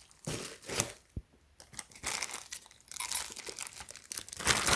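Plastic packaging crinkling and rustling in irregular handling bursts, with a few light knocks, growing busier near the end.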